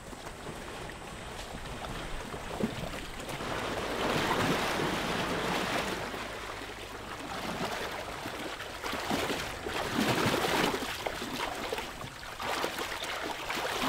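Water splashing and sloshing as elephants wade and drink at a waterhole, swelling and fading unevenly, loudest about four seconds in and again about ten seconds in.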